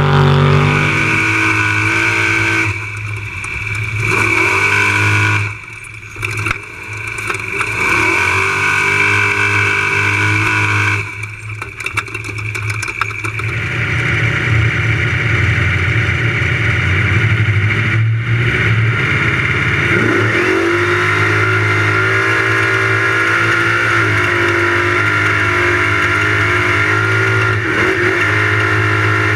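Unlimited trophy truck engine running hard, its pitch rising and falling again and again as the revs climb and drop. The level dips sharply twice, about five and eleven seconds in.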